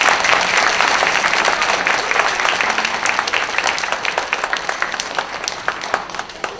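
Audience applauding, dense at first and thinning out to scattered separate claps toward the end.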